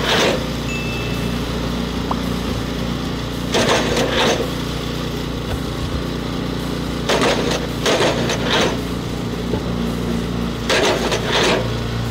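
A small engine runs steadily while blocks of firewood are split in a vertical wood splitter: short bursts of wood cracking and splintering come about every three and a half seconds, four times in all.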